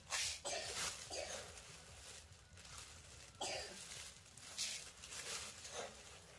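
A run of short rustles and scrapes, about six of them, with gaps of half a second to two seconds, as of something being handled.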